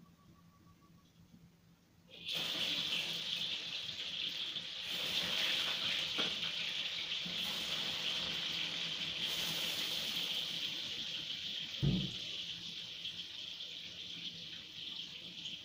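Blocks of tofu frying in hot oil in a stainless steel wok: a steady sizzle that starts suddenly about two seconds in as the tofu goes into the oil. A single dull knock near the end.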